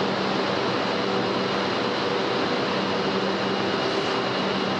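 Steady industrial machinery noise: an even rushing hiss with a low hum underneath, unchanging in level.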